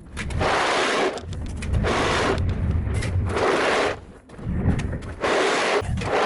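Four long, even scraping strokes, each about a second, with short pauses between them.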